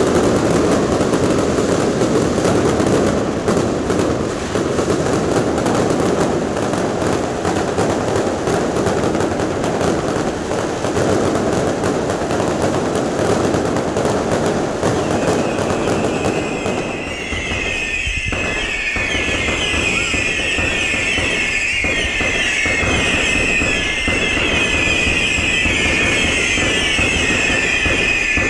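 Fireworks display: a dense, continuous barrage of bangs and crackling for about the first sixteen seconds. Then a chorus of many overlapping shrill whistling fireworks, wavering in pitch, over scattered bangs.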